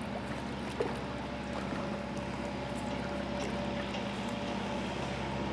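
Steady low motor hum with a faint wash of water; no splash stands out.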